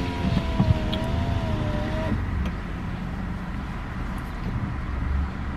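Car engine idling, heard from inside the cabin as a steady low rumble. A short hummed, voice-like note sits over it for the first two seconds.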